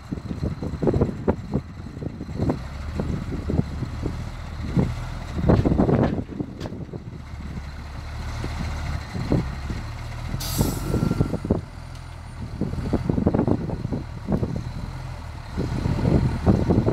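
Cummins six-cylinder diesel of an M936A2 military wrecker truck running at low speed as the truck creeps forward and climbs loading ramps, with irregular knocks throughout. About ten seconds in, a short hiss of air from the air brakes.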